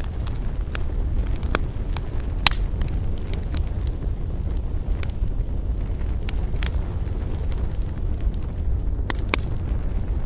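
Wood campfire burning: a steady low rumble of flames with irregular sharp crackles and pops of burning wood, two of them louder, about two and a half seconds in and near the end.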